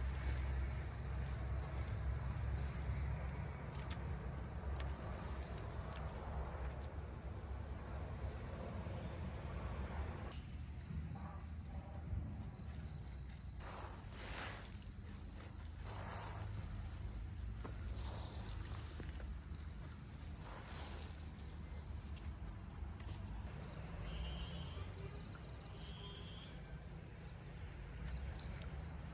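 Insects chirring: a steady, high, thin tone that grows stronger about a third of the way in, over a low rumble. A few faint rustles come through in the middle.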